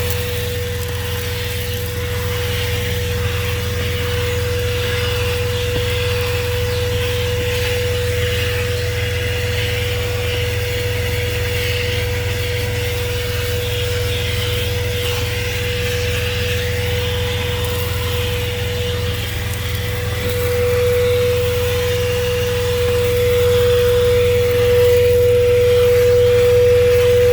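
ThisWorx 12-volt handheld car vacuum running steadily, a constant motor whine over rushing suction air, getting a little louder about three-quarters of the way through. A steady low hum from the truck's idling engine runs underneath.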